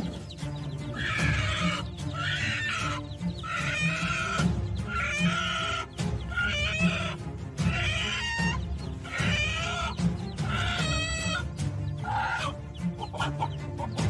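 A hen squawking in a rapid series of agitated alarm calls, about one a second, as she defends her chicks against an eagle, over background music.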